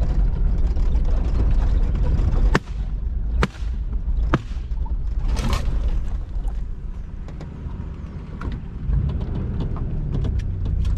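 Three sharp shots about a second apart from a Benelli M2 12-gauge semi-automatic shotgun, then another bang about a second later. The vehicle's engine and the rough ground make a steady low rumble underneath.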